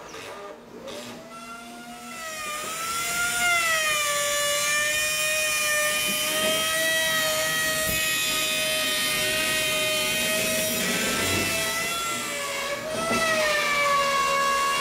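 Handheld electric wood trimmer (compact router) spinning up about a second in, then a steady high-pitched whine as it trims the wood around a round post hole, the pitch dipping briefly as the bit bites into the wood.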